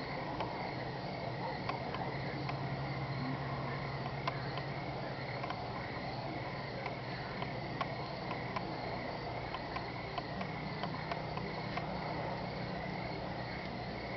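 A raccoon foraging and eating off a doormat: faint, scattered small clicks and ticks over a steady low background hum and hiss.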